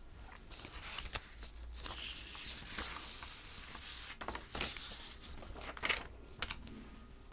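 Paper sheets and blouse fabric rustling and crinkling as hands handle them, with a few small sharp ticks.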